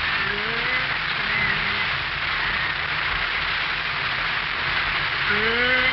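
Radio-drama sound effect of rain and wind: a steady hiss, with a few faint rising, wavering tones drifting over it near the start and again near the end.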